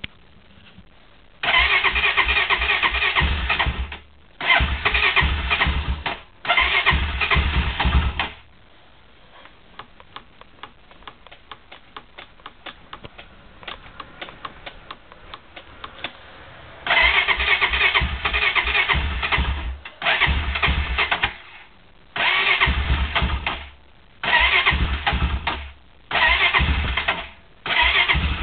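Cold 2006 Honda ATV engine being cranked in repeated bursts of about two seconds each without catching, its compression strokes pulsing evenly. Three bursts come first, then a quiet spell of about eight seconds with faint ticking, then five shorter attempts in quick succession.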